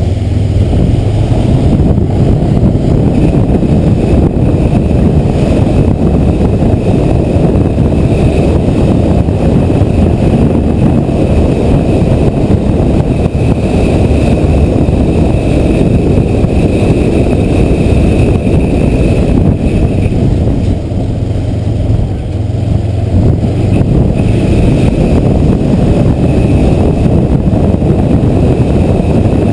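Kawasaki motorcycle on the move, its engine running under a dense rush of wind noise on the helmet-mounted camera's microphone. It gets louder as the bike pulls away at the start and eases briefly about two-thirds of the way through.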